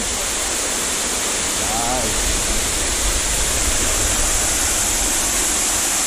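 Small waterfall cascading over rocks into a shallow pool: a steady rushing of falling water.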